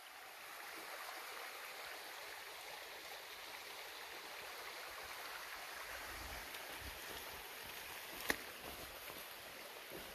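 Creek water running steadily, with one sharp snap about eight seconds in.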